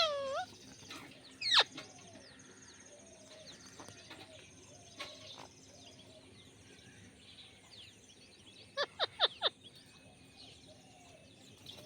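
Indian ringneck parrot calling: a sharp rising screech at the start and another about a second and a half in, soft chirps, then a quick run of four or five short sharp calls about nine seconds in.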